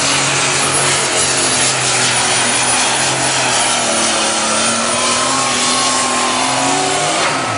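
Unlimited super stock pulling tractor's turbocharged diesel engine running flat out under the load of the weight sled. About four seconds in, the engine note falls away as the pull ends, and a high turbocharger whistle winds down.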